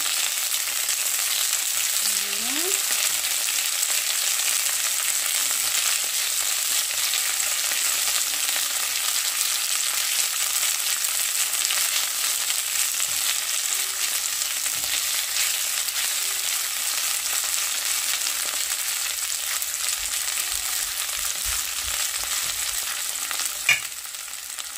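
Sliced red onions sizzling in hot olive oil in an enameled cast-iron Dutch oven, stirred now and then with a silicone spatula. A single sharp knock about a second before the end, after which the sizzle is a little quieter.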